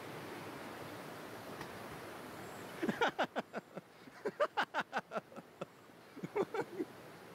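Steady rush of a rocky stream's white water. About three seconds in this gives way to a rapid run of short pitched calls, several a second, some falling in pitch, coming in two bursts.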